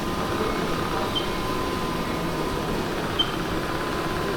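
Robotic floor-cleaning machine running with a steady mechanical hum, giving a short high beep about every two seconds.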